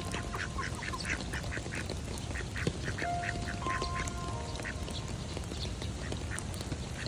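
Steady rain with animal calls over it: two quick runs of short repeated calls, about five a second, in the first half, and a few long, steady whistled notes.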